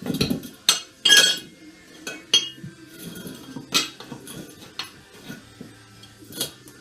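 Short tire iron levering a new tire's bead over a quad's wheel rim: several sharp, irregular metallic clinks and clanks as the iron strikes the rim, the loudest about a second in.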